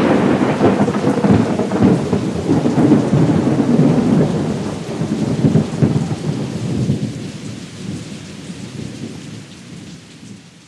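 Thunder rumbling over rain: a loud roll that swells in quickly, holds for a few seconds and then dies away slowly over the rest of the stretch.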